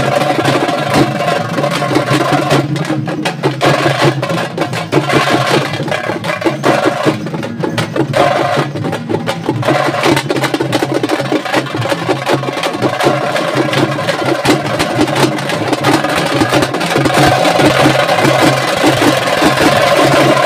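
A folk drum troupe beating large barrel drums with sticks in a loud, fast, unbroken rhythm.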